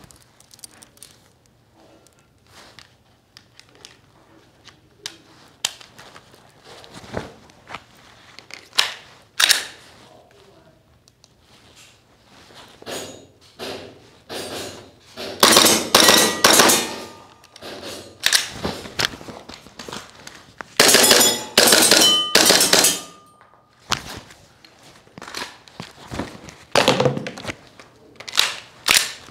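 WE Glock 17 Gen5 gas-blowback airsoft pistol in a SLONG carbine conversion kit, firing: scattered single shots and clicks at first, then two fast strings of shots about halfway and about three quarters in. A faint ringing tone hangs after some of the strings.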